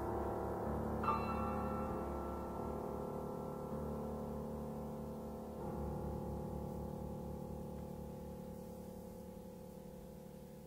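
Solo piano playing slow, sustained chords. A new chord is struck about a second in and another a little past the middle. The last one rings on and fades steadily away.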